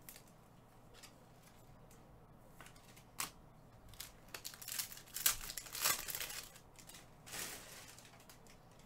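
Foil wrapper of a Prizm basketball card pack crinkling and tearing open in a few short rustling bursts, most of them in the middle.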